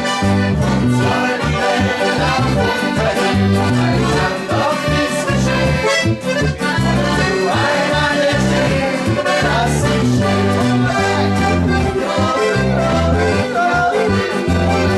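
Live Alpine folk-pop band music led by a Steirische Harmonika (diatonic button accordion), over a steady bass beat.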